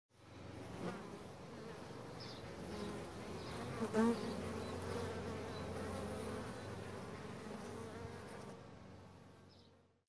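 Bees buzzing in a steady, many-winged drone that fades in, swells briefly about four seconds in, and fades away near the end.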